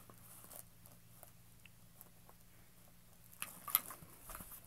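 Plastic bubble wrap crinkling and small plastic helmets tapping as they are handled in a cardboard box, with a louder burst of crackling about three and a half seconds in, over a faint steady low hum.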